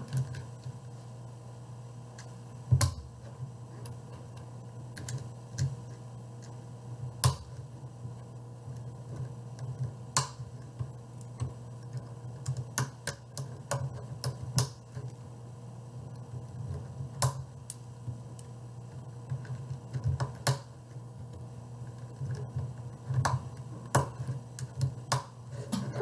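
Irregular small plastic clicks and taps as coloured tiles are pressed onto the black plastic pieces of a DIY Rubik's cube kit, a few seconds apart with some sharper snaps, over a steady low hum.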